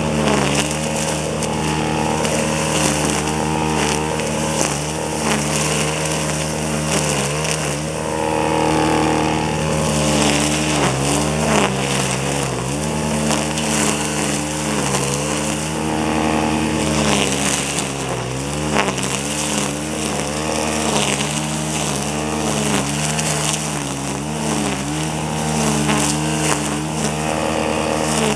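Gas string trimmer engine running at high speed while cutting weeds, its pitch dipping and recovering many times as the line takes load.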